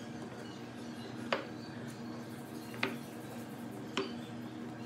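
Wooden tree-trunk slices clacking against a wooden board and against each other as they are set down and shifted by hand: three short, sharp knocks over a low, steady background.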